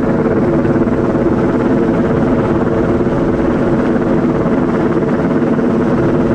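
Helicopter hovering close overhead while it holds a slung antenna section in place, its rotor and turbine making a steady, loud, unbroken drone.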